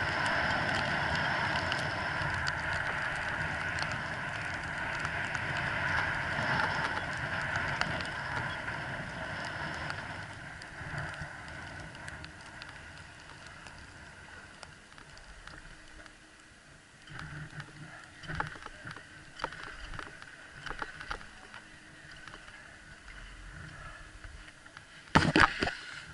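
Skis sliding over snow on a downhill run, a steady hiss that fades after about ten seconds as the skier slows. Scattered scrapes and clicks follow, and there is a single sharp knock near the end.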